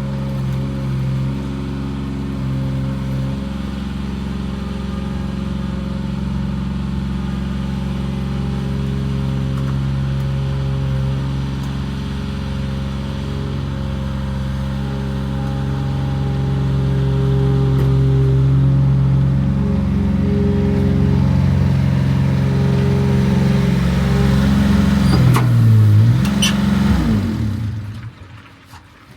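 Bobcat L28 compact loader's diesel engine running steadily, a little louder partway through, then winding down and shutting off a couple of seconds before the end.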